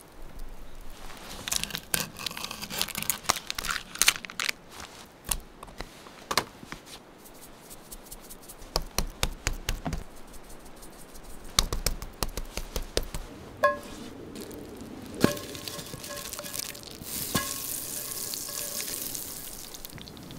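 Wood campfire crackling with many sharp pops and clicks, then toward the end a steady hiss of oil sizzling in a cast iron skillet set on the fire.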